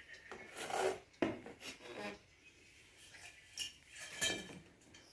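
Iron rods and plastic fittings of an adjustable washing machine stand scraping, rubbing and knocking against each other while the stand is put together, in a few irregular bursts about a second, two seconds, and four seconds in.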